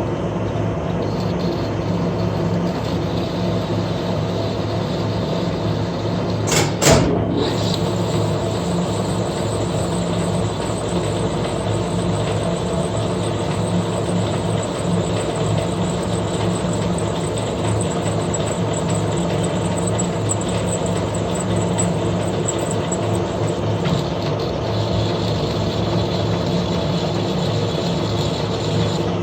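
Metal lathe running steadily with a constant motor hum, with one brief sharp noise about seven seconds in.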